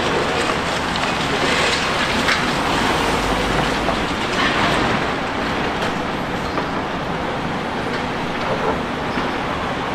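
Hitachi Zaxis 870 demolition excavator at work: a steady machine noise with scattered clattering and crunching.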